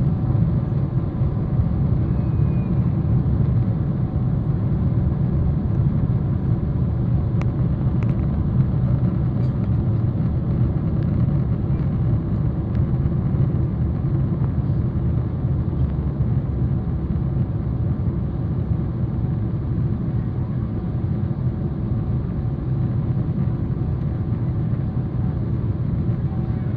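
Steady low rumble inside the cabin of a Boeing 777-300ER in flight: airflow over the fuselage and its GE90-115B engines, heard through the cabin wall.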